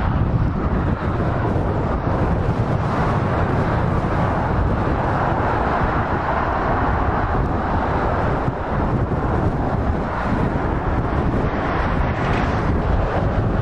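Steady roar of passing vehicles, swelling slightly in the middle, with wind buffeting the microphone.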